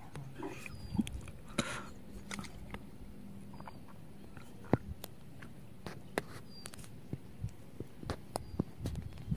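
A fishing rod cast into a pond, with a short soft splash about a second and a half in as the baited rig lands on the water. It is followed by scattered small clicks and taps and a few faint, short, high chirps.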